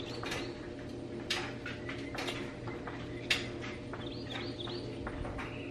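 Small firecrackers popping at irregular intervals, sharp single cracks that sound like Black Cat firecrackers. Birds chirp briefly about four seconds in, over a steady low hum.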